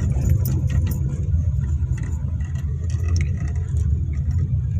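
Car cabin noise while driving: a steady low engine and road rumble, with small scattered clicks and rattles.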